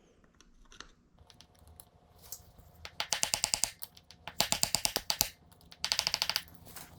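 Three quick runs of light metallic clicks, each under a second long, from work on a dirt bike's drive chain at the master link.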